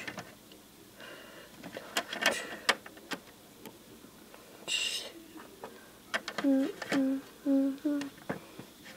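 A child's voice making sound effects: a short 'shh' about five seconds in, then four short hummed notes. Before that come a few light clicks as plastic toy figures are handled.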